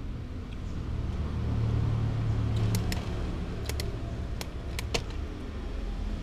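A handful of sharp clicks and taps as a kitten paws at a plush wind-up chick toy on a plastic tray of dry kibble, knocking the toy over. A low steady rumble runs underneath, a little louder in the first half.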